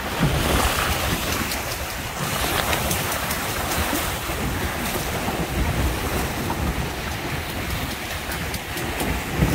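Wind buffeting the microphone over water rushing and splashing along the hull of a Windrider 17 trimaran sailing through choppy water, with one louder thump near the end.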